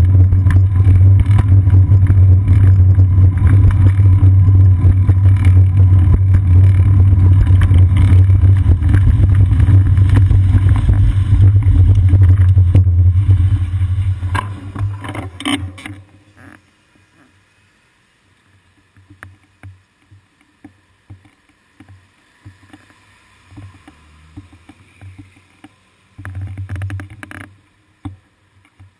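Wind buffeting the microphone of a bicycle-mounted action camera while riding, a loud steady low rumble. It fades out about 14 to 16 seconds in as the bike comes to a stop, leaving faint scattered gusts and one short louder rumble near the end.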